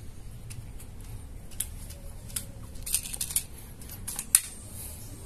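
Scattered light metallic clicks and clacks, with a sharper click about four seconds in: an Extreme Tactical V4 PCP air rifle being handled, cocked and loaded for the next shot.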